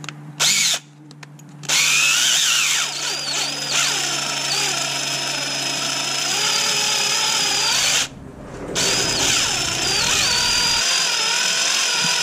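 Cordless drill with a 15/64-inch bit boring into the aluminium body of a Holley 4412 carburetor, drilling out stripped threads for a HeliCoil insert. A brief blip of the trigger, then two long runs of motor whine with a short pause about eight seconds in, the pitch sagging and recovering as the bit bites.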